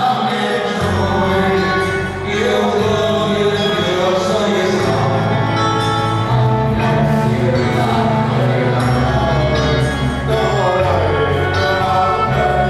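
A group singing a song together over instrumental accompaniment, amplified through loudspeakers.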